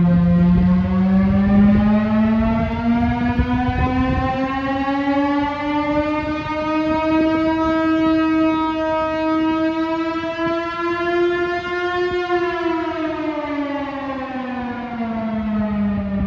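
Chrysler air raid siren (Chrysler-Bell Victory siren, driven by a Hemi V8) sounding a short alert: its loud, rich wail climbs slowly in pitch for about twelve seconds, then falls away over the last few seconds.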